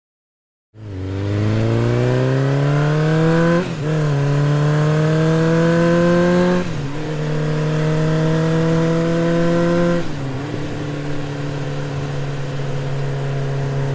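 Jeep engine accelerating up through the gears: its pitch climbs, drops at each of three gear changes, then holds steady at cruising speed.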